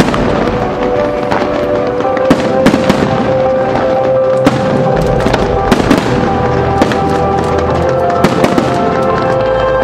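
Aerial fireworks going off in a rapid, irregular series of sharp bangs and crackles, over loud music with long held notes from the show's sound system.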